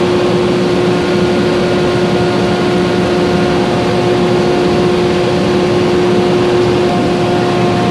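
Glass furnace running during a trial firing: a steady, loud roar with a constant hum laid over it.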